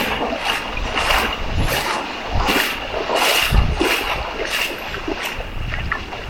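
Water splashing in a steady rhythm, about one splash every two-thirds of a second, with low gusts of wind on the microphone.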